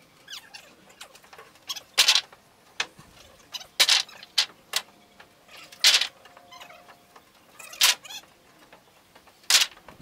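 Wooden boards knocking and clattering as lumber is handled off a truck bed. There are about seven short, sharp knocks at irregular intervals.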